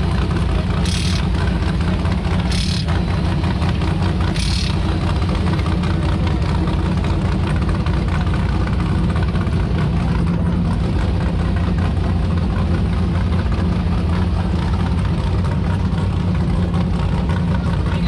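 Off-road race car's engine idling steadily. Three short hissing bursts, about two seconds apart, come in the first five seconds.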